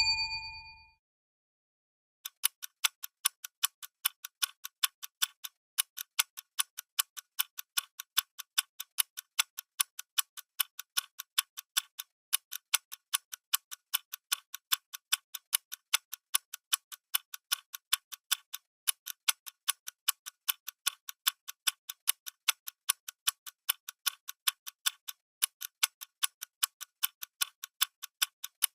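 Clock ticking at a steady pace, the ticks alternating louder and softer in a tick-tock, starting about two seconds in. At the very start the tail of a ringing chime fades out.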